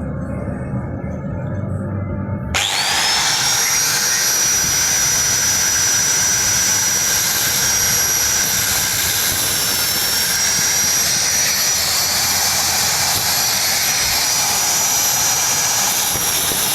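An electric grinder starts about two and a half seconds in, its whine rising quickly to a steady high pitch over a loud spread of noise, as it cuts off the excess length of a washing-machine motor shaft.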